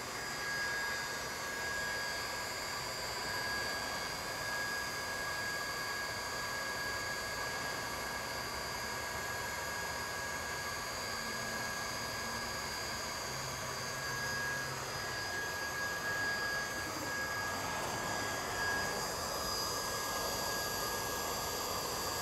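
Steady drone of running machinery with a constant high whine over it, holding even throughout.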